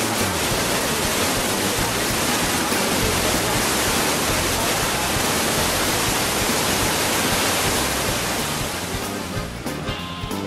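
A steady, loud rushing noise with no clear pitch. It thins out near the end, where music comes through.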